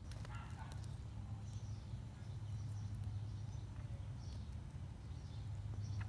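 Steady low hum with faint, scattered high bird chirps over it. A few crackling clicks come in the first second, with single clicks later.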